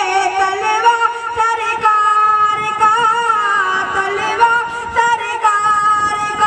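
A boy's high voice singing a naat into a stage microphone, long held notes with wavering melodic ornaments.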